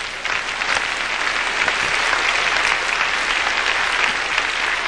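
A large congregation applauding: dense steady clapping from many hands.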